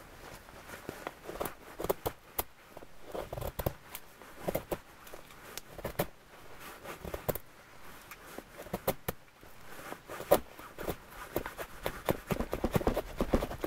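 Knife carving a feather stick: short scraping shaves of the blade down dry wood, one after another at about one or two strokes a second, coming faster near the end.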